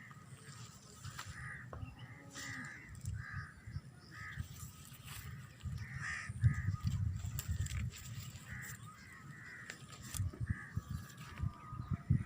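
Birds calling outdoors: a long run of short, repeated calls, one or two a second, over a low rumble.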